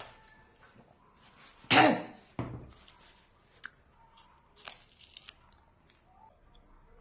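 Sounds of someone eating: a loud, short noise about two seconds in, then a smaller one and a few light clicks of utensils against a dish.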